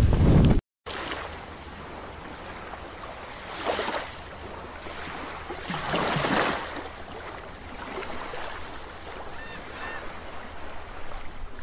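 Water washing and lapping, an even rush that swells louder twice, about four and six seconds in. It follows a brief total dropout of the sound just under a second in.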